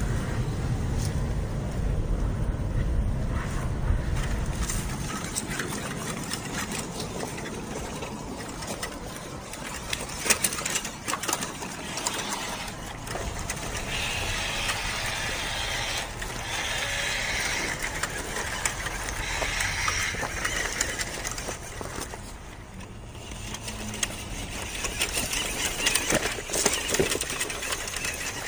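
A small battery-powered RC truck's electric motor whirring as it drives over gravel and stones, with many small clicks and knocks from the tyres and chassis on the rocks.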